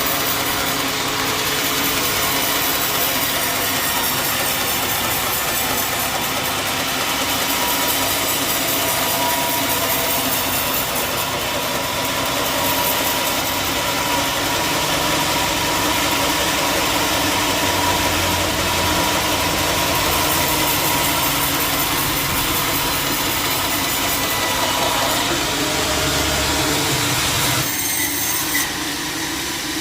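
Bandsaw sawmill running, a steady mechanical drone with a held whine. The sound thins out and drops a little about two seconds before the end.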